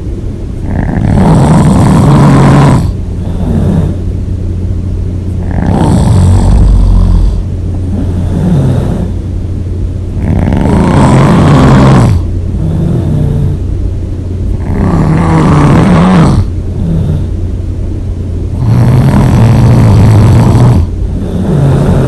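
A person snoring loudly and rhythmically: five harsh, rasping snores, one about every four seconds, each lasting a second or two, with quieter breathing between them.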